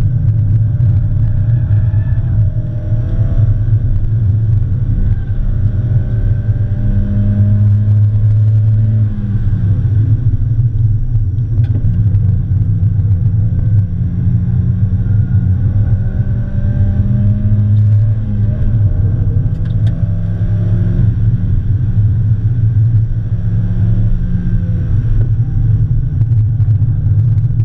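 2003 Mazda Miata's 1.8-litre four-cylinder engine under hard track driving, heard from inside the cabin. It gives a steady deep drone whose revs climb slowly and then fall off sharply about three times.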